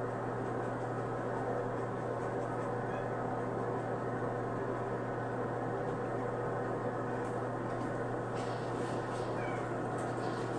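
Cats meowing faintly from their kennels, a few short calls, over a steady low hum.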